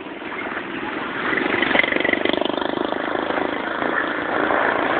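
A motor vehicle's engine running, with a noisy hiss over it, growing louder after about a second.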